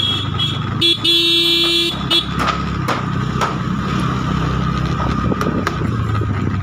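Motor scooter running along a cobbled road, with a vehicle horn sounding: a short toot about a second in, a held blast of about a second, then another short toot. A few sharp knocks follow.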